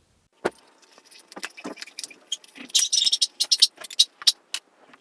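Handling noise from small plastic toy figures and their packaging: a string of light clicks and taps, with a brief crinkle about three seconds in.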